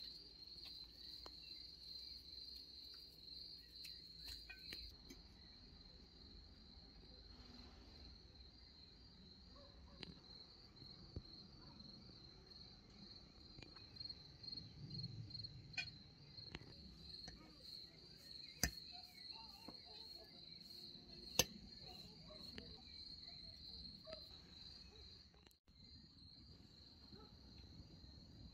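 Crickets chirping in a steady, fast-pulsing high trill. Two sharp clicks stand out about two-thirds of the way through.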